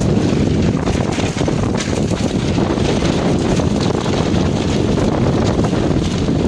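Heavy wind buffeting the microphone aboard a sailing catamaran: a loud, steady low rumble with the boat's own water and rigging noise underneath.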